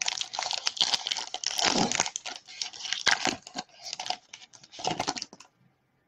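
Baseball-card pack wrapper being torn open and crinkled by hand, a dense run of crackling that stops about five and a half seconds in.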